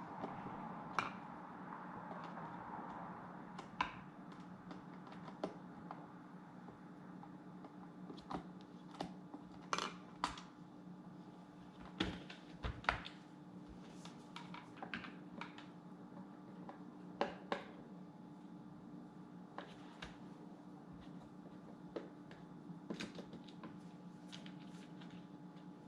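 Scattered small clicks and taps of a screwdriver and screws against the plastic housing of a Dyson V8 handheld vacuum as the battery screws are undone, over a faint steady hum.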